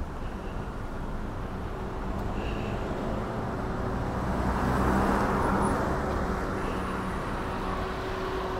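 Street traffic: a car's engine and tyres grow louder and fade as it drives past about five seconds in, over a steady low traffic rumble.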